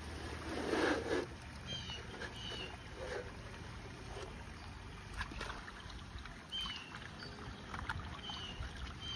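Water splashing and draining off a mini Gold Hog river sluice as it is tipped and its matting lifted out for a clean-out, with a louder splash about a second in and a few light knocks as it is handled.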